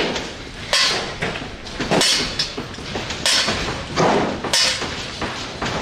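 Irregular heavy knocks and bangs, about one a second, from a house being broken up by hand during its demolition.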